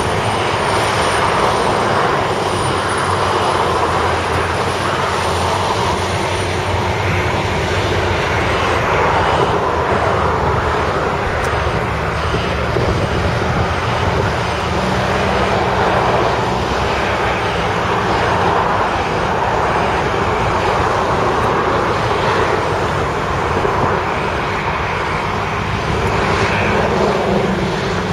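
Volvo A30D articulated dump truck's diesel engine running steadily under load as the loaded truck drives slowly through mud.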